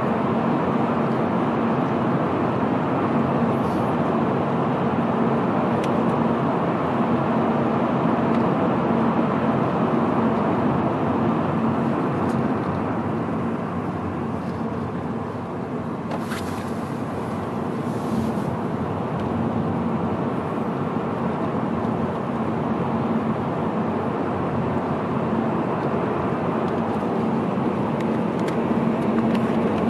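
Car driving through a road tunnel, heard from inside the cabin: steady tyre and engine noise with a low hum, easing off slightly around the middle.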